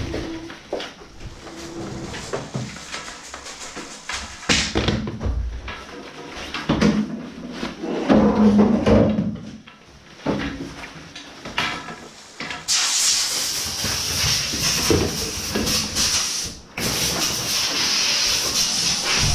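Knocks, clunks and rustling of ski gear being handled in a wooden room, then about two-thirds of the way in a loud, steady hiss of a compressed-air blower nozzle blowing snow off, which stops for a moment and starts again near the end.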